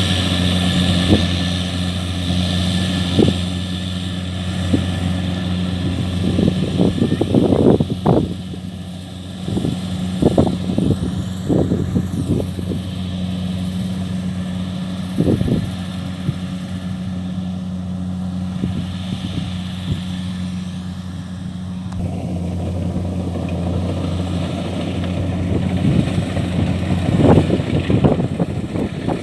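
Kubota DC-70 rice combine harvester's diesel engine running steadily under load while it cuts and threshes rice, with irregular short thumps and knocks over the steady hum.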